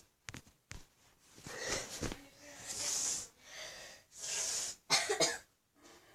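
Several loud, breathy exhalations from a person close to the microphone, each about a second long, with a few short clicks between them.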